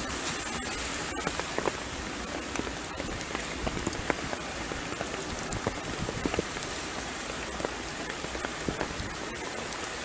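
Heavy hurricane rain falling: a steady dense hiss with many small, sharper drop hits scattered through it.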